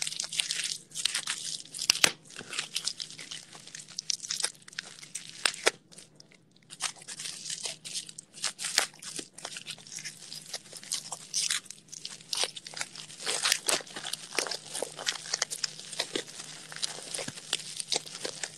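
Paper packaging crinkling, rustling and tearing by hand in irregular crackling bursts as a gift package is unwrapped, with a short lull about six seconds in.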